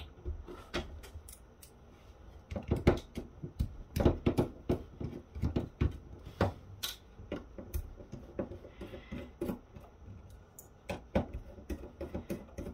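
Precision screwdriver backing out the small screws that hold the circuit board into a plastic cordless phone handset. Irregular clicks and taps of the driver, plastic case and loose screws on the table.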